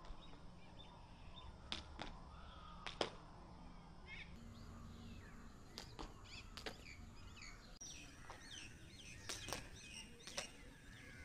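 A thin jump rope turned one swing at a time, slapping the ground with a sharp crack every second or few, the loudest about three seconds in. Birds chirp in the background, mostly in the second half.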